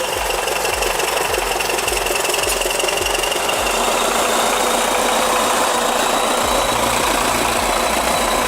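T-170 crawler bulldozer's diesel engine running steadily, with a high whine that fades out over the first few seconds.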